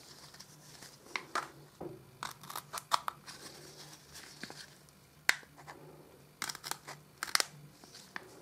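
Small scissors cutting drainage holes in the bottom of a thin clear plastic cup: sharp snips and clicks in irregular clusters, with light crackling of the plastic.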